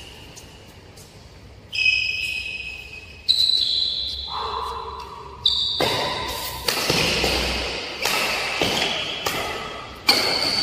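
Badminton racket strings hitting a shuttlecock in a fast rally: about half a dozen sharp cracks, each with a ringing ping that echoes and dies away in a large hall.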